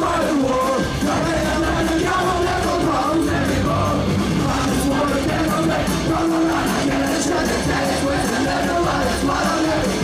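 A punk rock band playing live, the singer yelling over steady, unbroken music.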